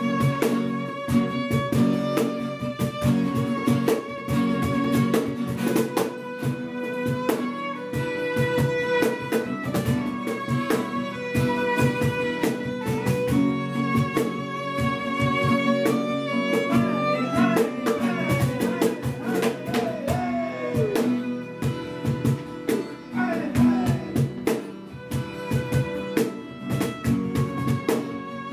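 Instrumental trio of violin, acoustic guitar and cajón: the violin plays long held notes and, about two-thirds of the way in, sliding phrases, over strummed guitar and steady cajón beats.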